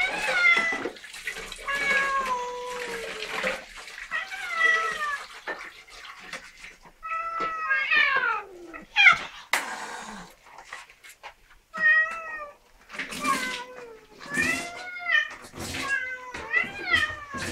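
Several domestic cats meowing over and over, their calls rising and falling and overlapping at times, as they wait to be fed. A few brief swishing noises come between the calls.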